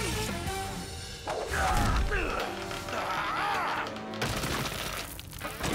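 Cartoon action soundtrack: background music with sound effects, including a sudden loud hit a little over a second in followed by gliding, bending effect tones.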